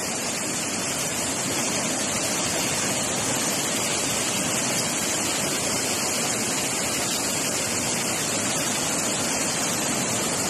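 Muddy floodwater rushing and pouring over the edge of a road in a flooded wadi. It makes a steady, unbroken noise of churning white water.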